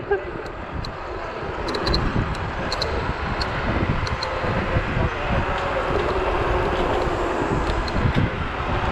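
Wind buffeting the microphone and road noise from a Zero 10x electric scooter riding at speed, with a faint steady whine underneath and a few light ticks.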